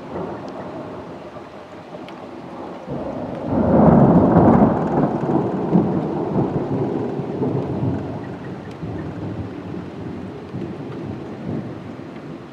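Distant thunder from a cloud-to-ground lightning strike: a rumble that builds about three seconds in, is loudest a second or two later, then rolls on and slowly fades, with light rain falling throughout.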